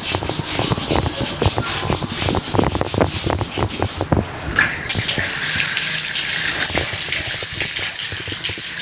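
Bathroom tiles scrubbed hard with a fibre scrub pad, in rapid back-and-forth strokes, as stains are worked off with cleaning liquid. About five seconds in, the scrubbing stops and water starts running steadily, rinsing the tiles.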